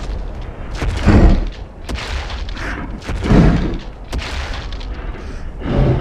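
Dinosaur film sound effect for a Tarbosaurus: three deep booms, evenly spaced about two and a half seconds apart, over a steady low rumble.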